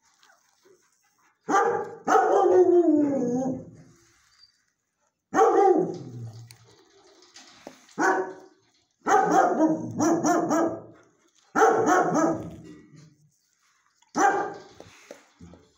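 A dog barking repeatedly in bouts a second or two apart, some barks drawn out and falling in pitch, the longest about two seconds in.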